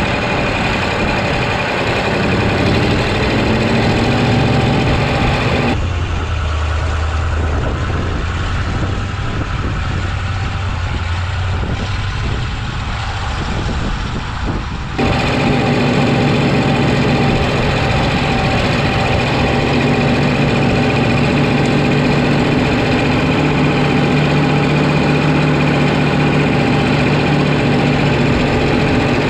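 Oliver 2255's Caterpillar 3150 V8 diesel running steadily at low speed while the tractor is driven around a snowy field to warm up after a cold start. It is heard close up from the hood. For about nine seconds in the middle, starting about six seconds in, a tractor is heard from farther off, duller and with less high sound, before the close engine sound returns.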